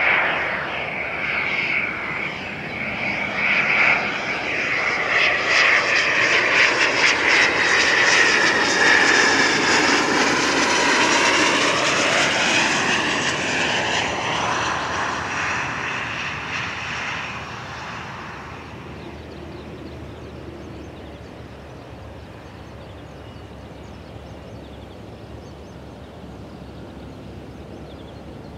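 Hawker Beechcraft 400A business jet on landing approach, its twin turbofan engines whining loudly as it passes low overhead, with sweeping shifts in tone as it goes by. The sound builds over the first several seconds, then fades after about two-thirds of the way through to a faint distant rumble as the jet moves off toward the runway.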